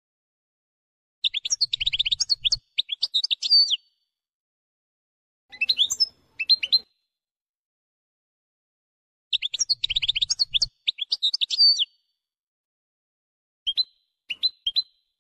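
European goldfinch song in the 'wdaniya' style: rapid high twittering trills and chirps, delivered in four separate phrases with silent gaps between them.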